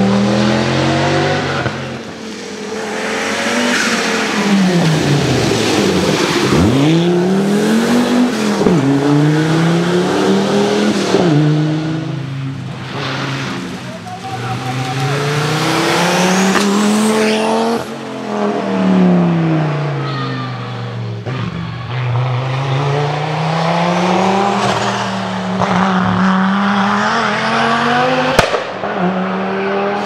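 Audi quattro rally cars, each with a turbocharged five-cylinder engine, driven hard past one after another. The engine note climbs under acceleration and drops through gear changes and as each car goes by, the passes swelling and fading in turn.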